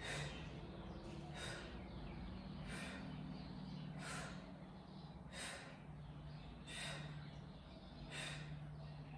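A woman's sharp exhales, seven of them evenly spaced a little over a second apart, each timed to a pulsing abdominal crunch, over a steady low hum.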